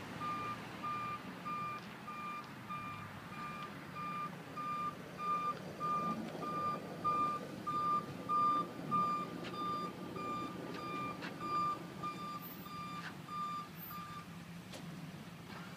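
Backup alarm of a hi-rail utility pickup truck beeping steadily about twice a second as it reverses along the rails, over its running engine. The beeping stops near the end, and a few sharp clanks come in the second half.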